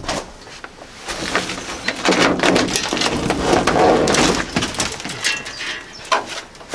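Rotten plywood roof padding with foam and vinyl being prised and ripped off a Land Rover's metal roof: a run of sharp cracks and snaps, with a denser stretch of tearing and crumbling about two seconds in that eases off a couple of seconds later.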